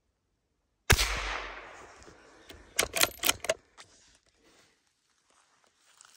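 A single gunshot from a hunting gun, loud and sudden, with a long echoing decay. About two seconds later comes a quick run of several sharp clicks.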